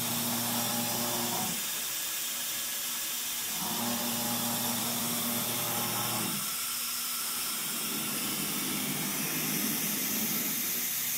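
Steady hiss of cooling air from the MultiCam 3000 CNC router's compressed-air-cooled Colombo spindle, with a low hum from the gantry drives during fast moves. The hum stops and starts again twice, turns rougher and noisier for a few seconds after the middle, and returns near the end.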